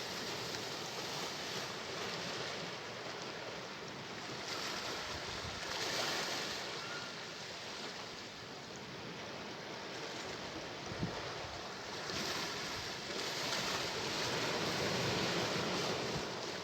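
Sea waves washing onto the shore, a steady rush that swells and eases in slow surges, louder twice. A brief click about eleven seconds in.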